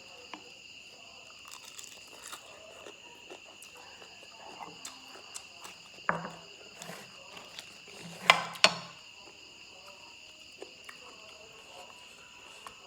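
Close-up crunching and chewing of shredded green papaya salad (tam mak hung), with a few louder crunches about six seconds in and twice just past eight seconds. Insects chirp steadily behind.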